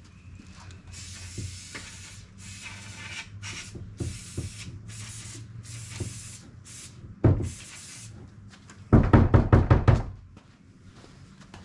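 Aerosol brake cleaner sprayed in a series of short hissing bursts into the housing of a control arm flex joint to clean it out. A single knock follows, then near the end a quick run of about ten knocks in a second.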